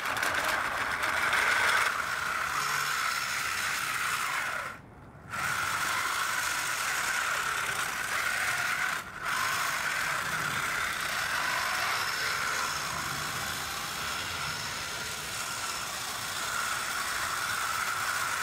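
A 3D-printed tank's brushless-motor drive running through straight-cut 3D-printed spur gearboxes, the gears whirring and rattling steadily as it drives. It is a noisy drive because the gears are flat spur gears rather than helical. The sound breaks off for about half a second around five seconds in, and briefly again near nine seconds.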